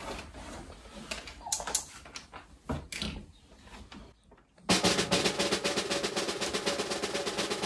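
Small clicks and rustling of multimeter test leads being handled, then, about two-thirds of the way through, a loud rapid snare drum roll over a low sustained tone starts abruptly as a suspense music cue.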